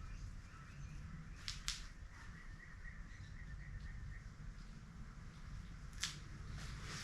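Faint outdoor quiet with a bird calling a quick run of chirps, and a few light clicks or taps.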